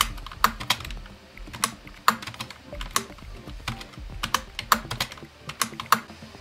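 Computer keyboard and mouse clicking: irregular sharp clicks, several of them in quick pairs.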